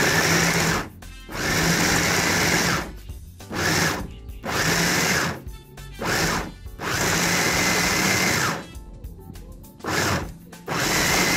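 Electric mini food chopper whirring as tomatoes are chopped in its bowl, switched on and off repeatedly in pulses from half a second to about two seconds long, with short pauses between.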